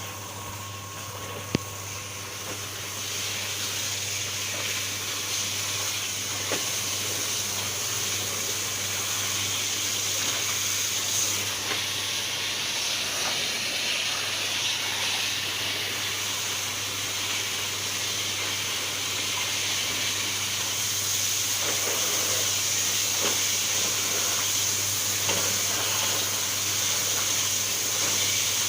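Washing machine running: a steady motor hum under a continuous hiss and swish of water, getting a little louder a few seconds in, with one sharp click about a second and a half in.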